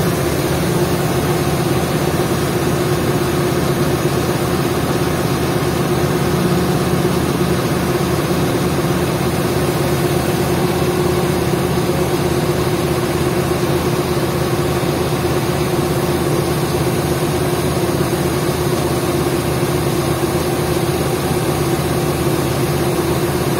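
Diesel engine of an XCMG 50-ton mobile crane running steadily at constant speed, with an even low pulsing and a constant hum, while the crane works its hook.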